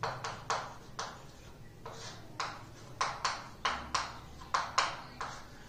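Chalk writing on a blackboard: an irregular run of quick taps and short scratchy strokes as the words are written out.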